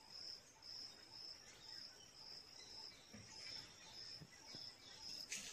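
Cricket chirping faintly, a high, even chirp about twice a second over a near-silent room.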